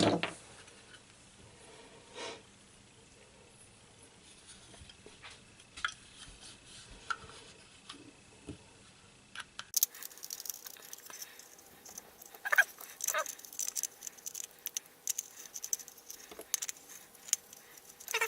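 Handling noise from a GoPro clamp mount and camera being picked up and fitted together: scattered sharp clicks and rustles of small plastic and metal parts. They are sparse at first and grow busy and rapid in the second half.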